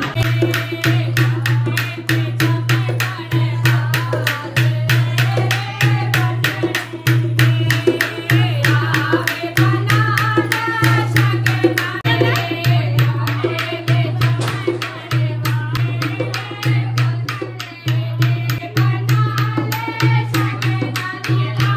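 Women singing a devotional folk song together to a steady drum beat, with rhythmic hand-clapping keeping time.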